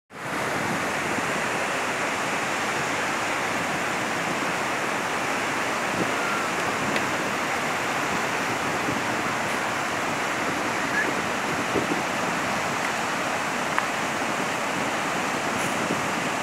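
Water pouring from a dam's opened spillway gates during a flood release: a steady, even rush of falling water.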